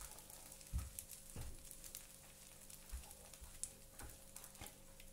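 Faint kitchen handling sounds: about half a dozen soft, scattered knocks and clicks over a low steady hum.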